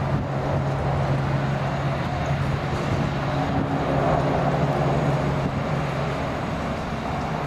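PZL W-3A Sokół twin-engine helicopter hovering low and moving forward to land: steady rotor and turbine noise with a constant low hum.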